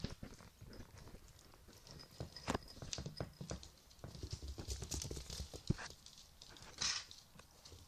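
Two young black-and-tan puppies shuffling and nuzzling on a towel: soft rustling and small scratchy clicks, with a faint thin high whine partway through and a brief louder rustle near the end.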